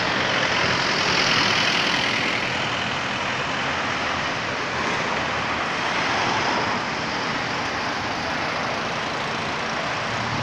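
Road traffic noise from cars and motorcycles moving slowly past in the next lane: a steady hum that swells about a second in and again around six seconds as vehicles go by.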